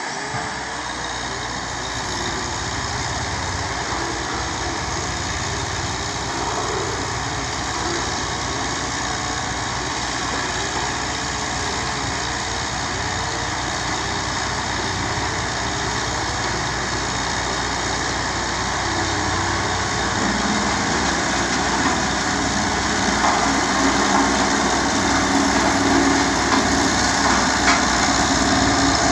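Heavy diesel engine running steadily, growing louder over the last third.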